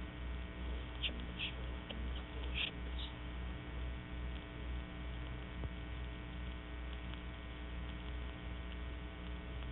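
Steady electrical mains hum with a ladder of evenly spaced overtones, the background of an old recording cut off above about 4 kHz, with a few faint short ticks in the first three seconds.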